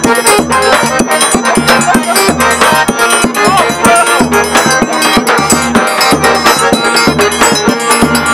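Live forró pé de serra: a piano accordion plays the melody over the regular beat of a zabumba bass drum and a triangle, loud and steady.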